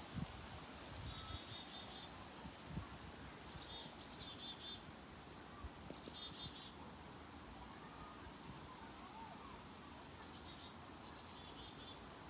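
A songbird singing the same short phrase over and over, about every two seconds: a quick downward slur followed by a short run of four or five rapid notes. A thin, high trill comes about eight seconds in, with faint low thumps underneath.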